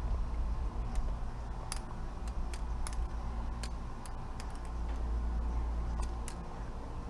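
Balisong (butterfly knife) being flipped: its metal handles click and clack as they swing around the blade, in quick, irregularly spaced clicks, about fifteen over the several seconds.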